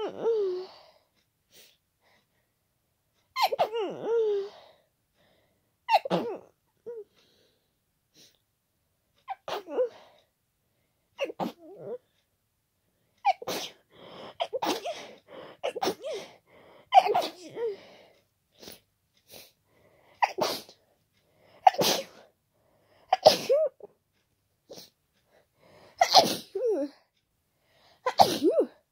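A person with a head cold sneezing over and over, wet and loud, a sharp burst every few seconds with quick breaths in between.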